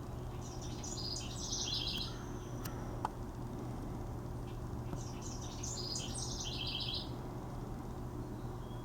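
A bird singing twice, each song a burst of quick, high chirping notes lasting about a second and a half, over a steady low hum. A single sharp click comes about three seconds in.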